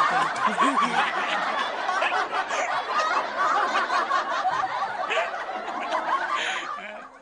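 A group of men laughing together, the laughter dying down near the end.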